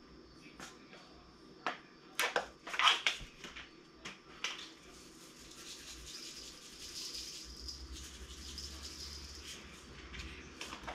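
Salt shaken from a container into a bowl of ground meat for meatballs. A few sharp clicks and taps of the container come first, then a faint, steady hiss of grains falling for about five seconds.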